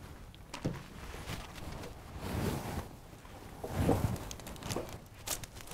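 Handling noise at a game table: soft rustling movement and a few light clicks and knocks of pieces being handled, with two longer swells of rustle.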